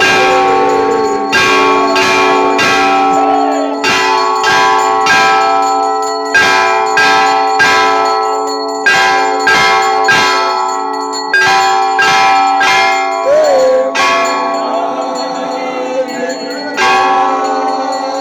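Large hanging temple bells struck over and over for aarti, one to two strikes a second, each ringing on into the next. About fourteen seconds in the strikes stop and the ringing fades, then the strikes start again near the end.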